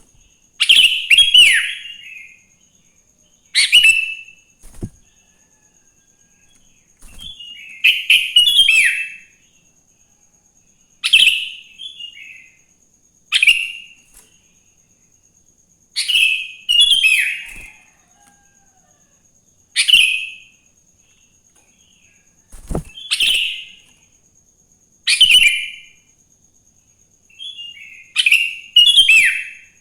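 Sooty-headed bulbul (kutilang) singing: short bubbly phrases of quick falling notes, about ten of them, one every two to four seconds.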